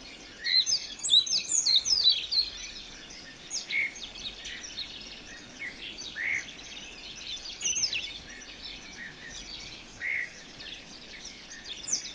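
Several birds chirping and calling: a busy flurry of quick, falling chirps for the first couple of seconds, then scattered single calls, over a faint steady hiss of background ambience.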